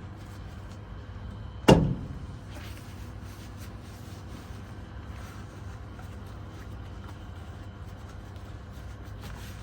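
A single loud knock about two seconds in, ringing briefly, over a steady low rumble.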